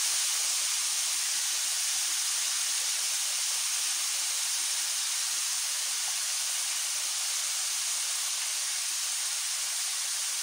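Chopped carrots and green beans sizzling in hot oil in a kadai: a steady high hiss that fades very slightly.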